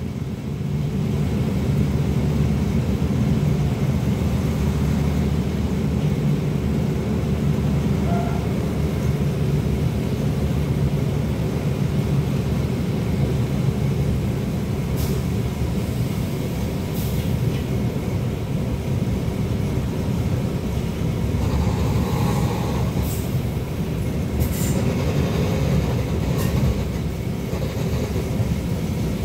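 ALn 668 diesel railcar heard from inside while under way: a steady low engine drone over the rumble of wheels on rail, with a few sharp clicks in the second half.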